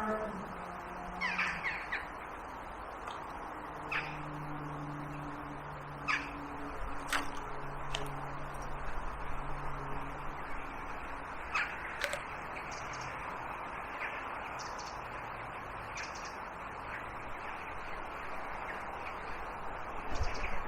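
Crows cawing now and then, a short call every second or few, over a steady background hiss.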